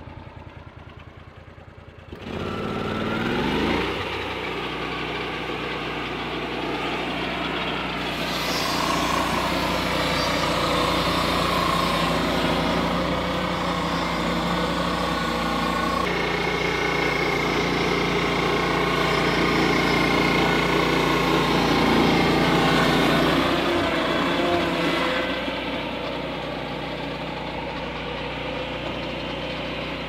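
Lucas swing-blade portable sawmill driven by a Kohler Command PRO V-twin engine: idling, then throttled up about two seconds in, its pitch rising as the circular blade comes up to speed. From about eight seconds in it is louder and noisier as the blade saws lengthwise through a large log, easing back near the end as the blade runs free.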